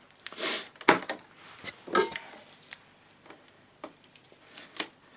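Light handling noise on a workbench: a short rustle, then a few scattered clicks and taps of tools or meter probes against the radio chassis.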